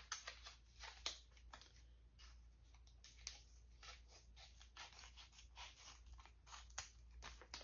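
Faint, irregular crinkling and clicking, several small crackles a second, as a sheet-mask sachet is handled and opened.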